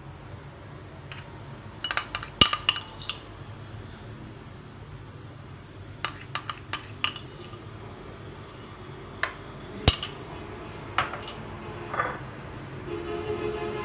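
Steel spoon clinking against dishes in short sharp clinks, a cluster about two seconds in, another around six to seven seconds, and single clinks from about nine seconds on.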